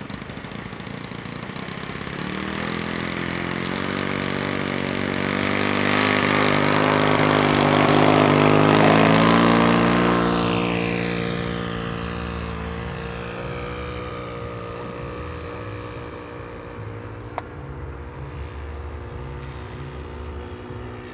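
The engine and propeller of a 1:5 scale SAI KZ II sport aircraft model throttling up for the takeoff run, getting louder as the model rolls past and then dropping in pitch. After that the engine runs steadily and slowly fades as the model climbs away.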